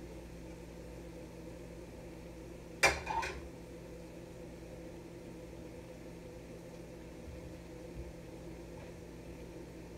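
Steady low kitchen hum, with a sharp clatter of cookware on the stovetop about three seconds in and a smaller knock just after.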